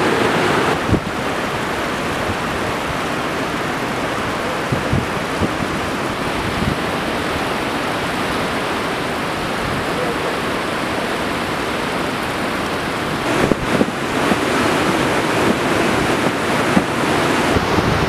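Glacial meltwater rushing steadily over the ice, with wind buffeting the microphone and a few short knocks about three-quarters of the way through.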